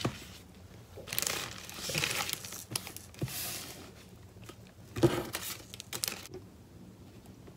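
Paper and sticker sheet crinkling and rustling as a sticker is peeled from its backing and handled, in several short bouts.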